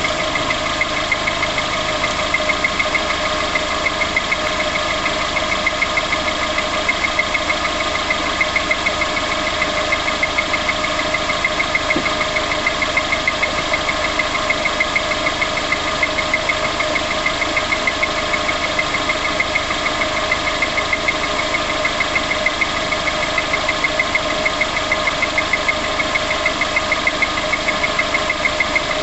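Car engine idling just after start-up, with a steady, rapid, regular tapping in time with the engine running through it.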